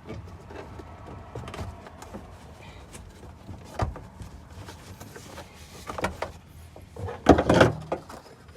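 Rear seat's plastic retaining clips being worked loose by hand: scattered clicks and knocks with handling rustle, and a louder clatter of knocks near the end as the clips come free.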